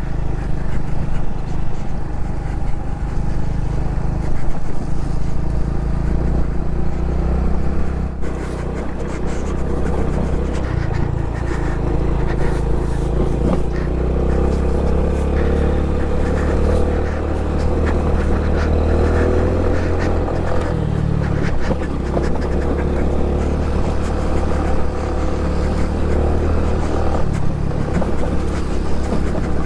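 Honda Pop 110i's small single-cylinder four-stroke engine running steadily while the motorcycle rides a rough dirt track, with a low wind rumble and scattered knocks and rattles from the bumps.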